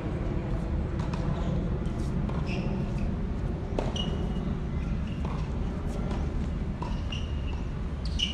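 Tennis being played on an outdoor hard court: sharp pops of racket strikes and ball bounces, the loudest a little under four seconds in, and several short shoe squeaks, over a steady low rumble.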